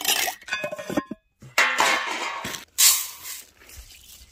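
Metal cookware clinking and scraping in three bursts, with a brief ringing tone after some of the strikes, while salt and chilli go into a pot of dal.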